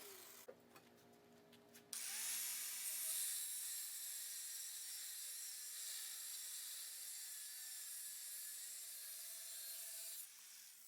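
Angle grinder cutting small notches into an old steel file: a steady hissing grind that starts about two seconds in, with the motor's whine wavering in pitch as the wheel bites, stopping about a second before the end.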